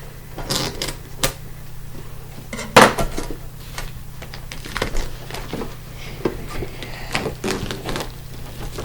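Pokémon collector's metal tin being handled and opened: scattered clicks and metallic knocks, the loudest about three seconds in.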